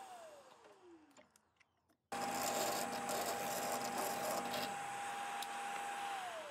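Drill press spinning down after a hole-saw cut, its motor whine falling in pitch. About two seconds in it starts again at speed with a steady whine while a twist bit bores through a small piece of wood, then is switched off near the end and the whine falls away.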